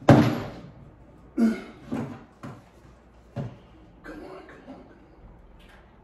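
Knocks and thumps of an over-the-range microwave being pushed up and fitted against the underside of the wall cabinet. One sharp, loud knock comes right at the start, then four lighter knocks over the next few seconds, with some quieter scraping after them.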